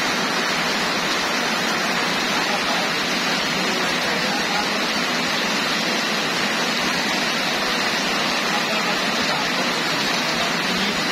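Heavy rain falling steadily onto a waterlogged paved road, a dense, even hiss that doesn't let up.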